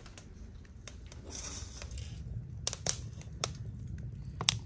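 Wood fire crackling and popping in a wood stove, with sharp pops coming louder and more often after about two and a half seconds, over a low steady rumble.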